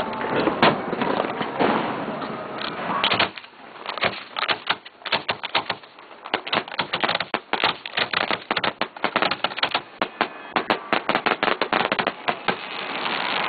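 Fireworks finale of 3- to 5-inch aerial shells: a few heavy booms over a dense wash of noise, then from about three seconds in a rapid string of sharp crackling reports, many a second, that runs until just before the end.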